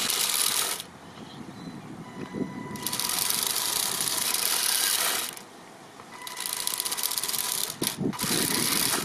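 Mecanum-wheeled RC monster truck with four 280-size brushed motors driving in short spurts: a busy electric whir and the rattle of the wheels' rollers on asphalt. The noise starts and stops abruptly with the throttle, about four times.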